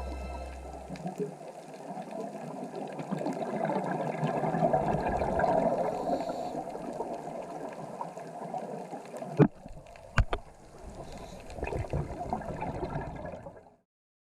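Muffled, gurgling water noise as picked up by an underwater camera. About nine and a half and ten seconds in come a few sharp clicks, and the sound cuts off abruptly near the end.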